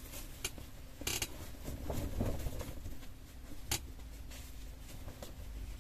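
Faint rustling of cotton fabric being handled and unfolded, with a couple of light clicks, one about a second in and one near four seconds in.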